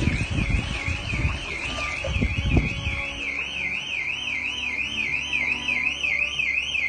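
An electronic alarm warbling steadily, its pitch sweeping up and down a little over three times a second. Water splashes and sloshes during the first few seconds.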